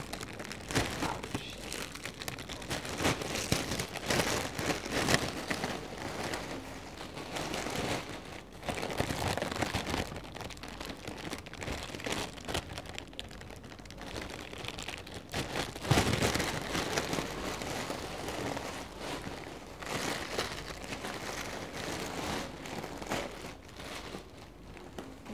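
Thin plastic mailer bag crinkling and rustling as it is opened and handled by hand, in dense, irregular crackles with a louder rustle about two-thirds of the way through.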